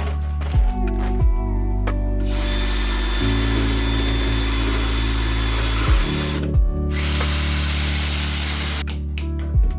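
Power drill running in two spells of a few seconds each, a steady high whine with a pause between them, over background music with a steady beat.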